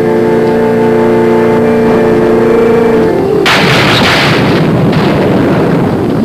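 Organ music holding slow chords, broken off about three seconds in by a sudden loud thunderclap that rumbles on as storm noise.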